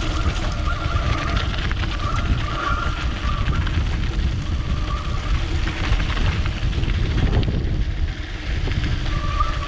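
Mountain bike descending a dirt trail: wind buffeting the action-camera microphone and tyres rumbling over the ground, with several short squeals from the disc brakes as the rider brakes hard.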